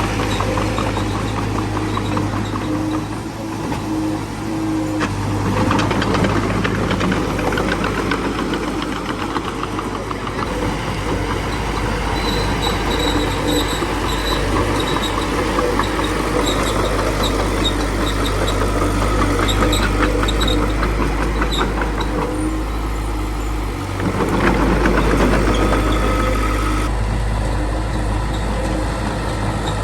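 Small crawler bulldozer's diesel engine running steadily under working load, with intermittent high squeaks through the middle.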